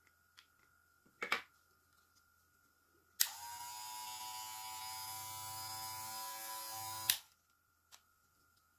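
A single sharp knock about a second in, then the Kemei KM-2296 hair clipper's motor is clicked on, runs steadily at one even pitch for about four seconds, and is clicked off.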